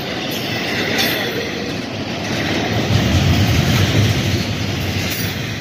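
Double-stack intermodal freight train rolling past: steel wheels clicking over the rail joints over a steady rumble. The rumble grows louder for about a second near the middle.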